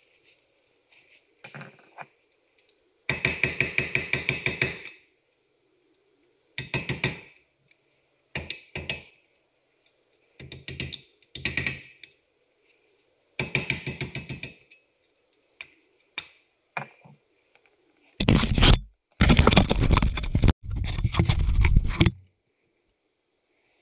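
Bursts of rapid, evenly repeated metal-on-metal impacts from a tool working on wheel studs and the brake disc. There are about eight bursts, the longest and loudest near the end.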